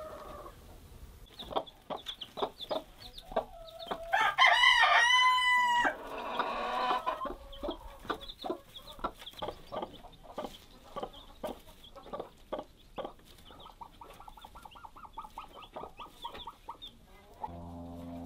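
Chickens clucking in quick short calls throughout, with a rooster crowing once, loudly, about four seconds in and lasting about two seconds. Faint high chirps run under the clucking, and background music comes in near the end.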